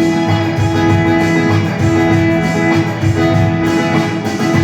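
Instrumental band music between sung lines of a Hindi film song: a plucked, guitar-like part over a sustained held note and a steady low beat.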